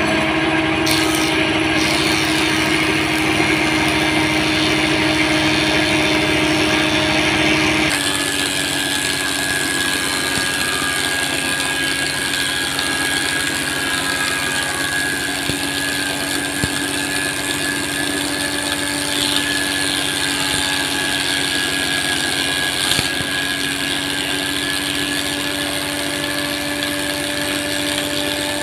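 Wood thickness planer running steadily with a constant hum and whine as it planes a red meranti board. About eight seconds in the sound changes abruptly and becomes slightly quieter, with less hiss.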